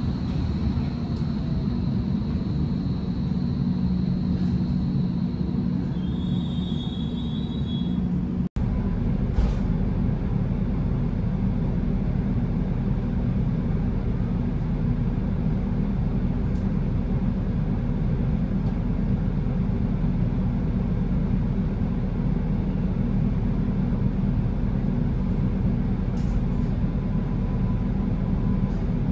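DT5 U-Bahn train heard from inside the car, running with a low rumble and a faint high whine, with two high tones near the end of its run. About eight seconds in, the sound cuts abruptly to the train standing at a station with a steady low hum from its onboard equipment.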